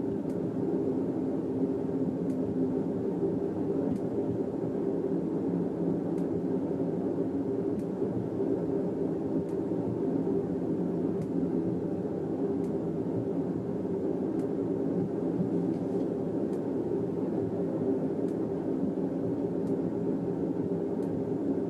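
Steady low rumbling noise with no change in level, with faint, irregular clicks scattered through it.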